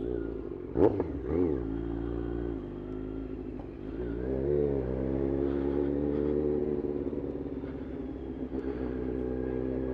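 Motorcycle engine with an aftermarket exhaust, blipped up and down in quick throttle rises about a second in. It then pulls up through the revs around four to five seconds in and settles into a steady run as the bike rides on.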